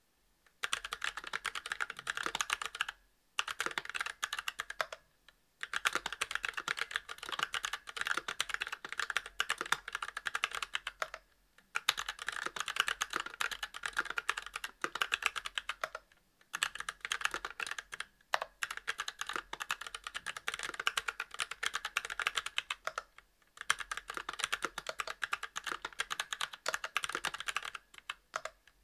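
Fast typing on a Monstargear Alu XO v2 mechanical keyboard with Kailh Box Brown tactile switches, a brass plate and GMK keycaps: rapid runs of keystroke clicks, broken by brief pauses every few seconds.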